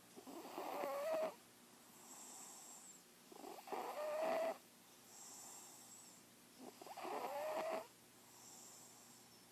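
Cat snoring in its sleep: three loud snoring breaths about three seconds apart, each rising in pitch near its end, with a fainter high whistle on the breaths in between.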